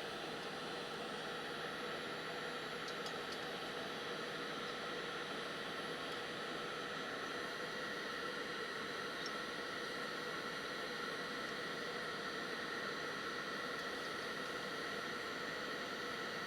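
Heat gun blowing steadily, an even whir with hiss and no change in pitch, while shrinking heat-shrink tubing over a crimped wire connector.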